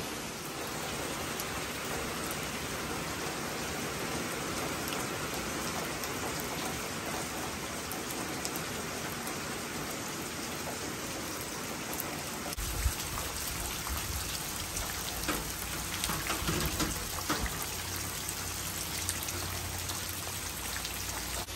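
Steady rain falling, with a few scattered sharp ticks; a low rumble joins about halfway through.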